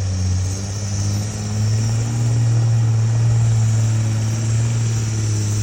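A vehicle engine idling steadily: a loud, even low drone whose pitch wavers slightly.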